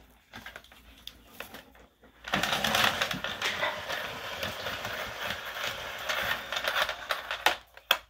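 Automatic cord rewind of a Bissell CleanView Swivel Pet Rewind upright vacuum reeling in its power cord: a noisy whir with rapid clicking that starts about two seconds in and stops abruptly just before the end.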